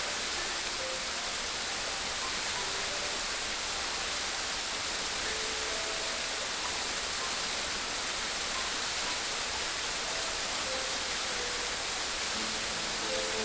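Steady rushing water, an even hiss with no surges. Soft background music notes run faintly over it and grow louder near the end.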